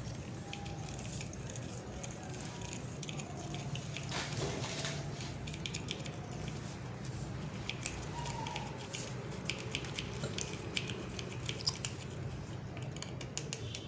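A spoon stirring a liquid mixture in a small container, with many light irregular clicks against the sides, over a steady low hum.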